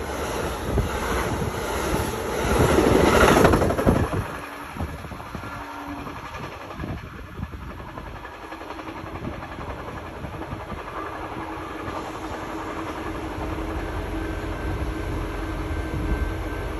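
Amtrak California Zephyr's bilevel Superliner passenger cars rolling past close by on the adjacent track. The noise is loudest about three seconds in as the last car goes by, then drops suddenly to a fainter, steady rumble as the train moves away.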